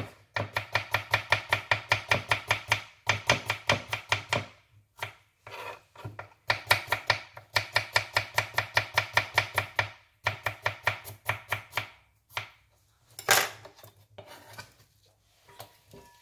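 Kitchen knife slicing radishes on a wooden chopping board: rapid, even strokes in runs of a few seconds with short pauses between. Then one louder single sound near the end.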